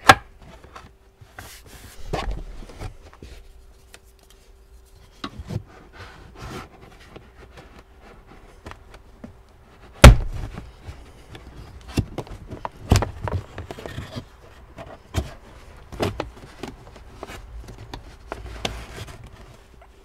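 Plastic interior trim clips and panels being pried out and handled inside a car, giving scattered clicks and knocks. The loudest knock comes about halfway, and a run of knocks follows. A faint steady hum lasts for much of it.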